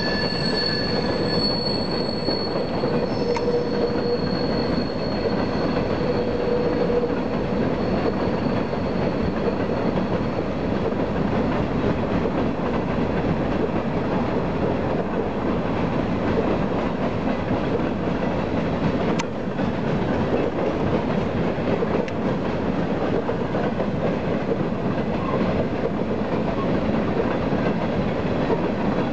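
Coal train hopper cars rolling past over the rails in a steady, continuous rumble. High-pitched wheel squeal rings over it for the first several seconds and then fades. A single sharp click comes about two-thirds of the way through.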